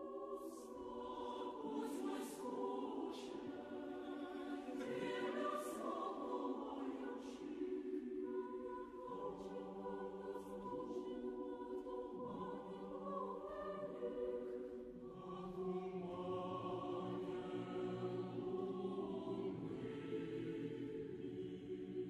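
Background choral music: a choir singing slow, long-held notes.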